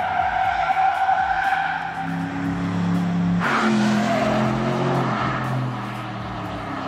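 Porsche Panamera Turbo S Sport Turismo on track: tyres squealing through a corner for the first couple of seconds, then its twin-turbo V8 engine pulling hard. About halfway there is a sudden burst of noise and the engine note drops lower. A music track with a steady beat plays underneath.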